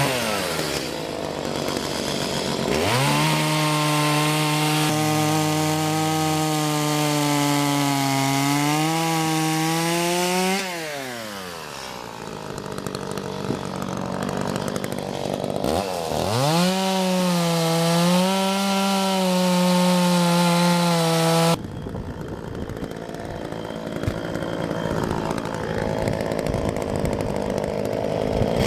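Two-stroke gas chainsaws cutting through logs. The engine revs up sharply twice, its pitch wavering as the chain bites into the wood. The first run winds down about ten seconds in; the second cuts off suddenly about two-thirds of the way through, leaving a rougher, steadier engine noise.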